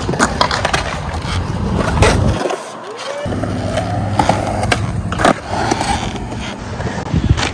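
Skateboard wheels rolling over concrete with a steady rough rumble, broken by several sharp clacks and knocks of the board. The low rumble drops out briefly about two and a half seconds in, then comes back.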